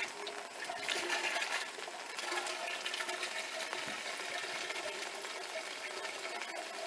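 Sneakers splashing and scuffing through a shallow rain puddle strewn with wet leaves, over a steady wash of rain, loudest about a second in.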